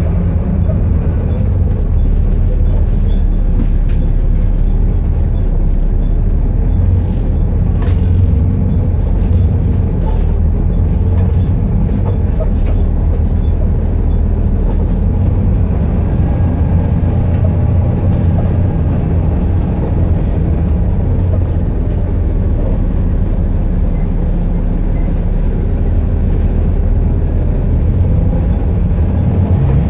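Cabin sound of a Metroline London bus, VPL602, on the move: a steady low diesel engine drone with road noise and body rattle. A brief high-pitched tone sounds about four seconds in.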